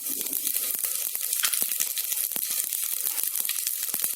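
Mustard and cumin seeds sizzling in hot oil and ghee: a steady hiss with many sharp crackles as the mustard seeds pop.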